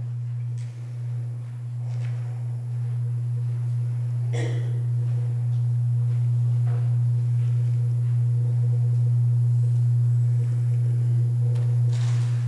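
A steady low hum on one held pitch, swelling slightly over the first few seconds, with a faint knock or rustle about four seconds in.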